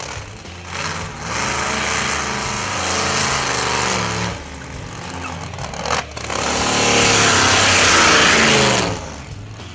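JCB GT backhoe's V8 engine being revved hard in two long surges of about three seconds each, its pitch rising and falling, with a quieter spell of running between them.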